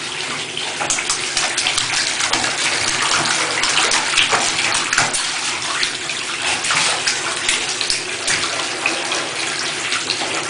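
Tap water running steadily into a bathtub and splashing over the shallow water on the tub floor.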